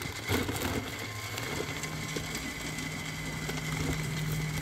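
An engine running steadily at idle; its hum settles onto one even pitch about a second and a half in.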